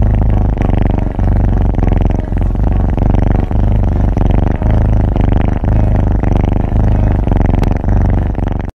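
Tabby kitten purring loudly right at the microphone: a steady low rumble that dips and swells with each breath, about once a second.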